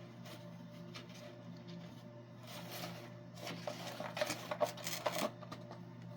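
A cat paws and scratches at a cardboard treat puzzle box, fishing a treat out of a compartment. The scraping and rustling, with sharp clicks and taps, starts about two and a half seconds in and is busiest for a couple of seconds before it stops. A low steady hum runs underneath.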